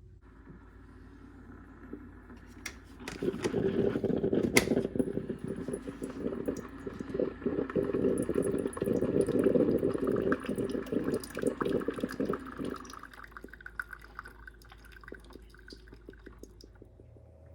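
Water pouring into a container for about ten seconds, beginning with a sharp clink about three seconds in and tailing off near the end. The water is being added to brew tea in a drip coffee maker.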